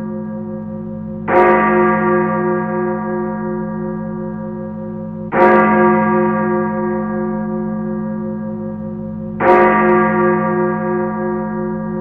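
A deep bell-like tone tolling three times, about four seconds apart, each strike ringing on until the next.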